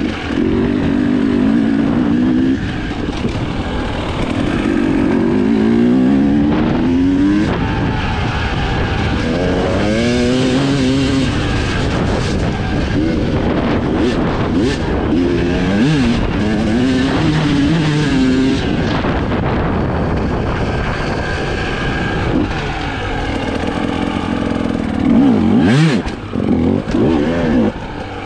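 Husqvarna TE 300i single-cylinder two-stroke enduro engine being ridden off-road, revving up and falling back again and again as the throttle is worked.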